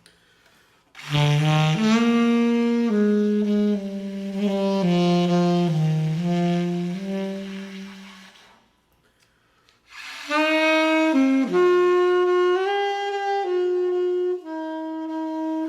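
Solo saxophone playing a slow melody of long held notes in two phrases, the second pitched higher, separated by a pause of about a second and a half.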